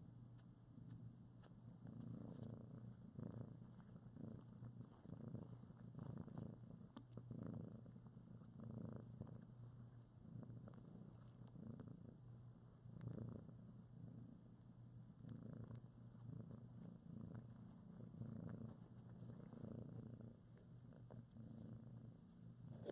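Nursing mother cat and her two-week-old kittens purring softly, the purr swelling and fading every second or two with their breathing.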